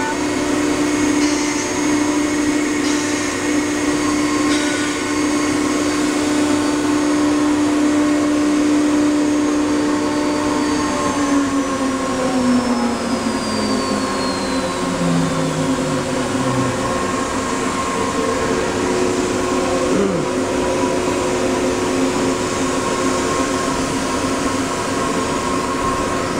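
CNC router's air-cooled spindle whining at a steady pitch, then spinning down with a falling whine over about six seconds from about eleven seconds in, over the steady drone of the machine's other running equipment. A short rise and fall in pitch comes about twenty seconds in.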